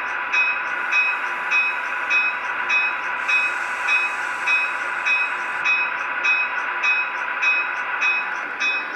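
Sound system of an HO-scale MTH Milwaukee Road 'Little Joe' E72 electric locomotive model: a steady electric hum with the locomotive bell ringing about three times a second. A hiss of air joins in for a couple of seconds in the middle as the pantograph rises.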